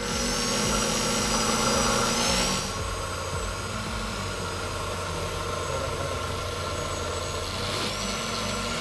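Electric mixer grinder running, blending a thick ginger, garlic and onion paste with red chilli and black pepper powder. It starts suddenly, and after about three seconds settles to a slightly lower, steady hum.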